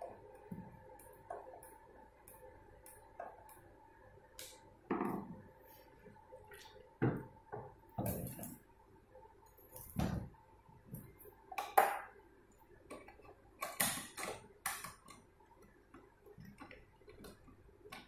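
Irregular clicks, knocks and metallic clinks of a mortise lock body and lock cylinder being handled and fitted into a door panel, with the sharpest knock about twelve seconds in.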